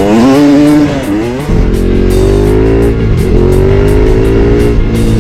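Motorcycle engine revving up and down, then settling into a steady, even drone about a second and a half in, with rock music mixed underneath.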